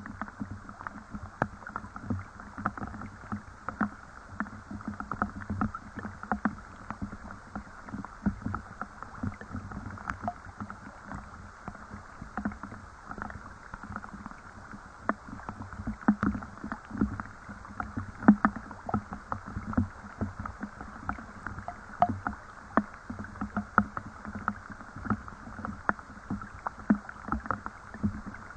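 Rain falling, heard as a steady wash with many separate drops and drips tapping irregularly.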